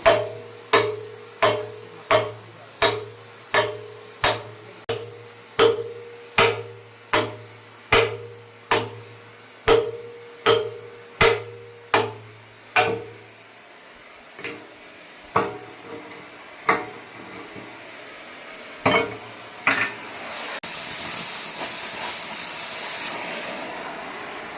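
Hammer blows on steel in a steady rhythm, about one every 0.7 seconds, over a steady machine hum. About halfway through the hum stops and the blows become slower and irregular. Near the end a steady hiss comes in.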